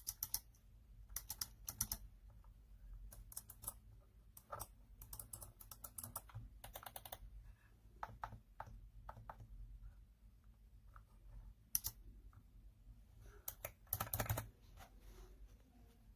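Mecha-membrane keys of a Razer Tartarus v2 gaming keypad clicking faintly under irregular presses, in single clicks and quick clusters.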